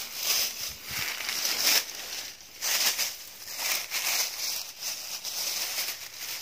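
Dry grass and dead leaves rustling and crackling in irregular bursts as they are pushed aside by hand.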